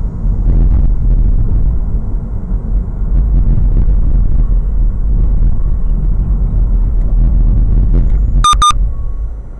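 Steady low rumble of a car driving, road and engine noise heard inside the cabin through a dash camera. Near the end come two short, high beeps in quick succession.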